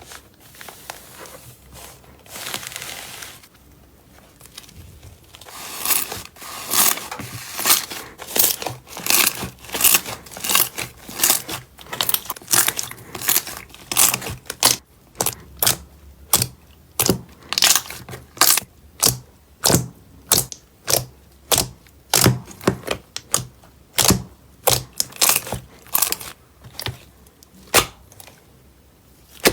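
Slime being squeezed and pressed by hand, giving soft crackling at first and then, from about six seconds in, a steady run of sharp crackling pops, one or two a second.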